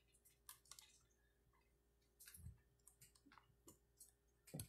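Near silence broken by faint scattered clicks and light knocks from the recording phone being handled and repositioned, with a dull thump about halfway and a sharper knock near the end.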